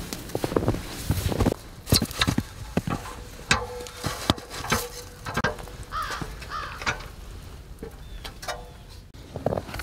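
A bird calling outdoors: two short calls about six seconds in, among scattered knocks and clicks.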